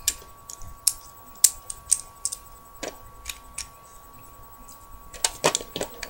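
Plastic Lego bricks clicking and clacking as they are handled and fitted back together: scattered sharp clicks, a lull in the middle, then a quick cluster of clicks near the end.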